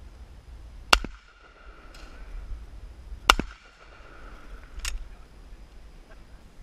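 Two shotgun shots about two and a half seconds apart, each a sharp report with a short ringing tail, followed about a second and a half later by a fainter crack.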